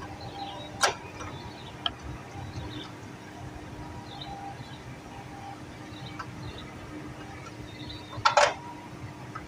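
A few sharp knocks over a steady low hum: one about a second in, a lighter one a second later, and a louder, rattling cluster near the end.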